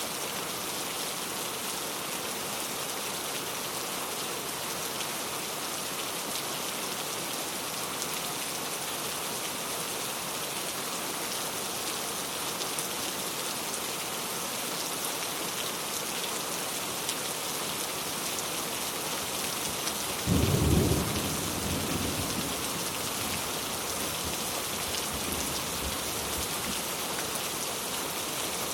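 Steady rain falling, with a sudden clap of thunder about twenty seconds in that rumbles away over the next few seconds.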